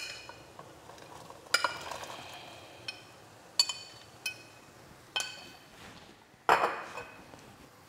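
Dry fusilli pasta tipped into a stainless steel pot of boiling water, with about six sharp, ringing clinks against the pot and a louder knock near the end.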